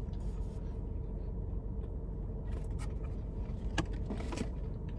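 Steady low hum of a car cabin with the engine or climate fan running. A sharp click comes a little before the fourth second, then a brief rustle, small handling noises during the meal.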